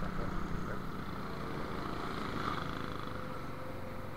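Motorcycle engine running at a steady cruise while riding in street traffic, with road and wind noise, and other motorcycles in traffic around it.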